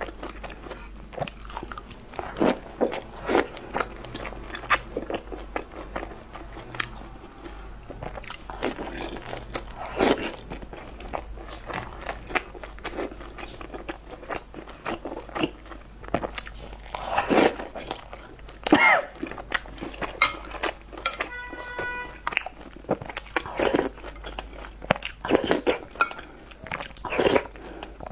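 A person biting into and chewing crispy battered fried food, close to the microphone: irregular crunches with wet chewing between them.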